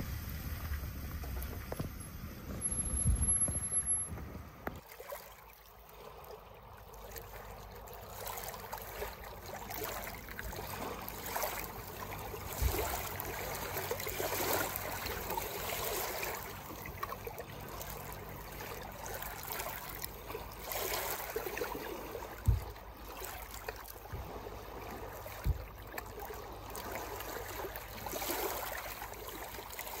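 Small waves washing in and out over a pebble-and-boulder lakeshore, the water swelling and fading in uneven surges. For about the first five seconds, wind rumbles on the microphone before the water takes over.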